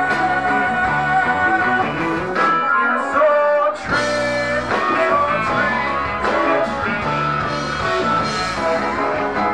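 Live band music: a male singer belting long held notes over the band.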